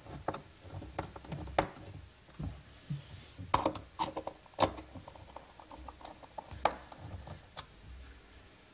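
Irregular light clicks and small knocks, about one a second, of a screwdriver working the screws of brass flap hinges on a wooden desk front while the hinges are fine-adjusted.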